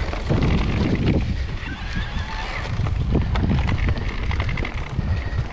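Wind buffeting the microphone over the rumble and rattle of a mountain bike rolling fast downhill over grass and bumps, with scattered knocks from the bike.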